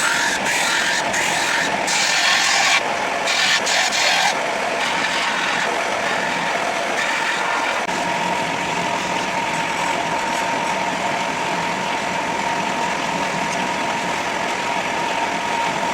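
Power grinder running steadily with a constant whine, grinding the edges of a coil-spring steel knife blade; for the first few seconds there are stretches of brighter hissing as the steel is pressed against it.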